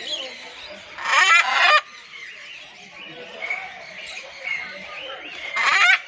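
Macaw squawking: two loud, harsh calls, the first about a second in and lasting under a second, the second just before the end.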